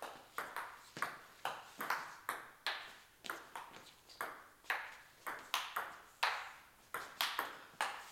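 Table tennis rally: a celluloid-type ball clicking off the bats and the table, about three hits a second at an uneven pace, each click with a short echo. The bats are faced with pimpled rubbers, short attacking pips against long defensive pips. The hits stop just before the end.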